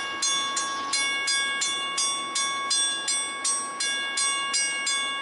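Railroad grade-crossing warning bell ringing in a steady rhythm of about three strikes a second, each strike ringing on and fading before the next, as the crossing gates lift after the train has passed. It starts suddenly right at the beginning.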